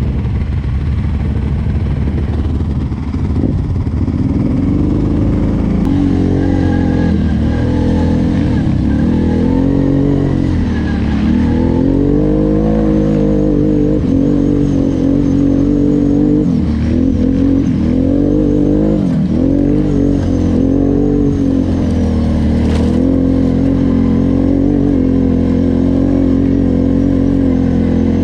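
Off-road vehicle engine running hard under way, its pitch rising and falling again and again as the throttle opens and closes.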